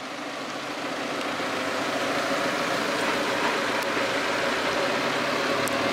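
Flatbed truck engines running as the loaded trucks drive off, with a steady hiss over them that grows gradually louder.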